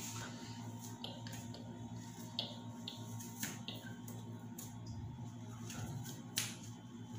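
Scattered short clicks and scratches of a comb and brush being worked through braided hair, over a steady low hum.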